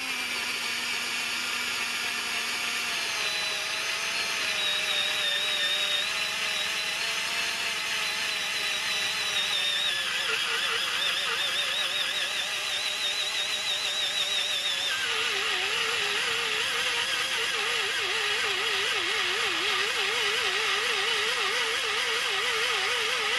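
AEG BS 12 C2 12 V cordless drill/driver, running on its rebuilt lithium battery pack, drilling a 10 mm hole into the end grain of a log. Its motor whine wavers under load and drops lower about 15 seconds in as the bit bites deeper.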